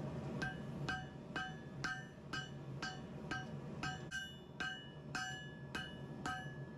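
Hammer striking a hot Damascus billet on an anvil: light, steady blows about two a second, each followed by a short metallic ring. The blows are kept soft while forging the welded layers sideways, so the billet does not split apart.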